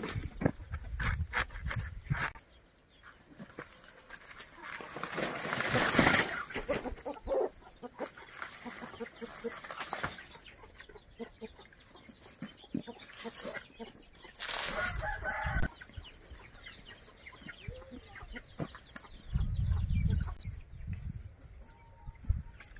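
Chickens clucking and calling, with a short pitched call about two-thirds of the way in. A loud rustle of dry banana leaf sheaths and stems being handled comes about six seconds in, the loudest sound here.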